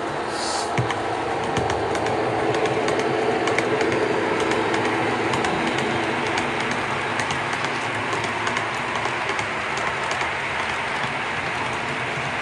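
OO gauge model freight train, a GBRf Class 66 diesel locomotive hauling hopper and open wagons, running past on the layout: a steady mechanical running hum with many small clicks of the wheels over the rail joints. It is loudest as the locomotive passes a couple of seconds in.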